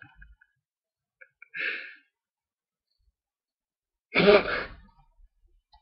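A man's short, breathy bursts of laughter: a faint one about a second and a half in and a louder one a little after four seconds, with quiet between.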